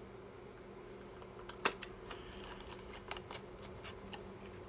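Small clicks and taps of a cosmetics package being handled and opened by hand, with one sharper click about a second and a half in, over a faint steady hum.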